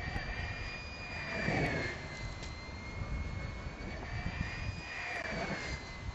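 Air rushing over an unpowered radio-controlled dynamic soaring glider in flight, heard from a camera riding on it, with a thin whistle that drifts up and down in pitch. The rush swells about a second and a half in.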